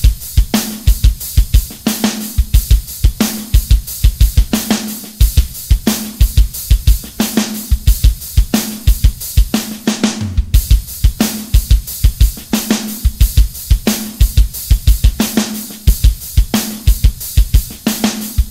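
Drum-heavy background music: a drum kit playing a steady, repeating beat with bass drum, snare and cymbals.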